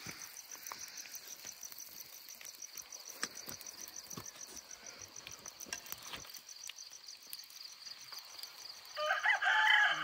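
Steady insect chirping, a continuous high pulsing trill, with faint scattered clicks; a short pitched call cuts in near the end.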